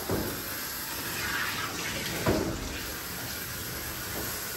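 Handheld sprayer hose spraying water onto a wet dog's coat in a grooming tub, a steady hiss and splash. A short, louder bump sounds about two seconds in.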